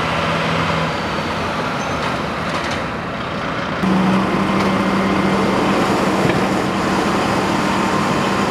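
MAN fire engine's diesel engine running steadily, with a low, even hum under a wash of noise. About four seconds in, the hum turns slightly higher and louder.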